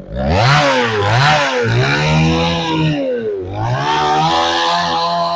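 Motorised saw cutting wood. Its motor pitch drops and recovers several times as the blade loads up in the cut, with a rough, rasping cutting noise over it.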